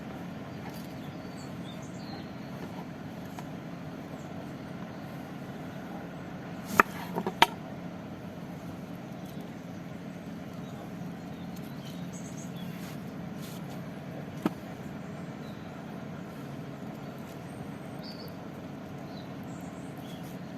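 Steady low outdoor rumble with a few sharp clicks: two close together about seven seconds in and one more around fourteen seconds, with faint high chirps now and then.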